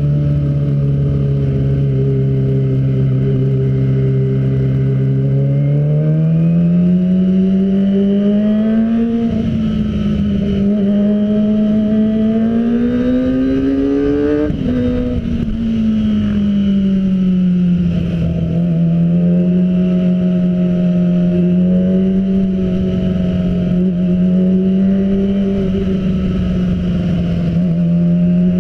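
Kawasaki ZX25R's 250 cc inline-four running through a full-system Arrow exhaust under way. It holds a steady note, climbs in pitch twice from about six seconds in, drops back sharply around fifteen seconds, then cruises with small rises and falls.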